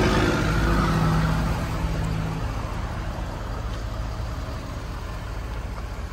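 Ford F-350 Super Duty pickup's engine idling steadily, louder at first and growing gradually quieter, with a low hum that drops away about two seconds in.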